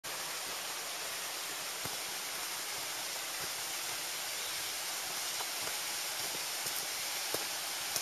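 Steady, even rush of water from a mountain stream and waterfall, with a couple of faint knocks.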